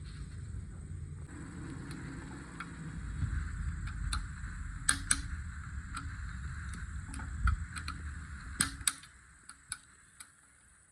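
Scattered light clicks and knocks of engine parts being handled and set in place during a cylinder head refit, over a low rumble that stops about nine seconds in.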